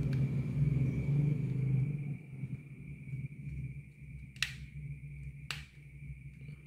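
Scraping and rumbling handling noise as a screwdriver works at a stubborn screw on a laptop's HDD caddy. It eases off after about two seconds, then two sharp clicks come about a second apart, over a faint steady high whine.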